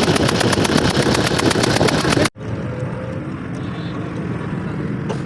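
An engine running, loud, with a rapid even ticking, until a sudden cut about two seconds in to a quieter, steady engine hum.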